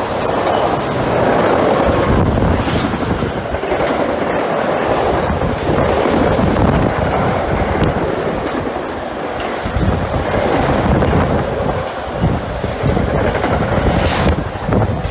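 Freight train of loaded double-deck car-carrier wagons rolling past close by, a continuous loud rumble and rattle with repeated wheel thumps.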